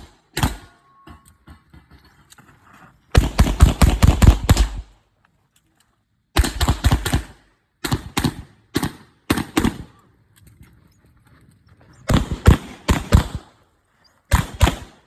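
Pistol shots fired in fast strings and pairs on an IPSC course of fire: one shot, a pause, a rapid run of about eight shots, then clusters and single shots spaced about half a second apart, with a last pair near the end.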